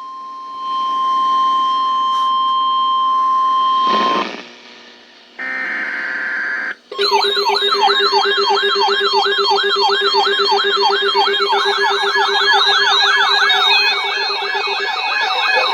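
Emergency weather alert tones: a steady single-pitch alert tone (near 1 kHz, like the Weatheradio Canada warning tone) holds for about four seconds and cuts off. After a short pause comes a brief harsh buzzing burst. Then, from about seven seconds in, a loud siren-like alarm begins, made of layered, repeated rising sweeps that come faster toward the end.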